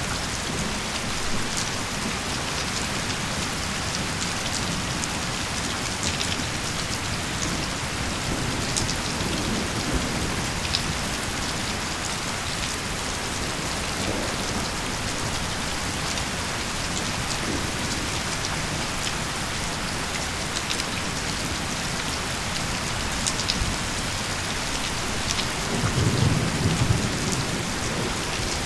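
Steady rain pouring, with scattered single drops ticking, and a low rumble of thunder near the end.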